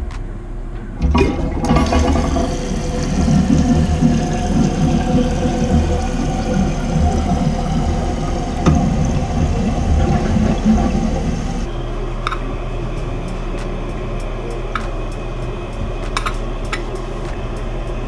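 Briggs toilet flushing and its tank refilling through a new fill valve: a loud rush of water starts about a second in and eases, about twelve seconds in, to a quieter steady run of water as the tank keeps filling.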